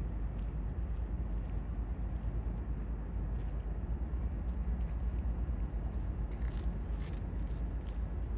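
A steady low rumble, with a few faint ticks near the end.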